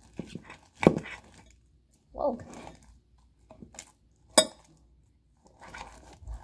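Plastic spoon stirring fluffy slime in a glass bowl: sticky clicks and squishes, with two sharp knocks of the spoon against the bowl, about a second in and again past four seconds.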